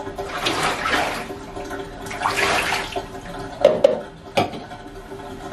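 Water poured from a cup over a small wet dog in a bathtub to rinse out the shampoo, splashing down twice, followed by a few sharp knocks.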